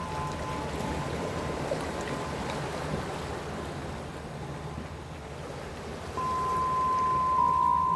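Sea waves washing in a steady low rush. A held, chime-like ringing tone sounds at the start, fades, and returns louder about six seconds in.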